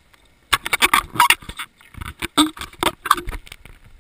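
Scuba diver's exhaled air bubbling out of the regulator underwater: a burst of loud, crackling, gurgling bubbles starting about half a second in and lasting about three seconds.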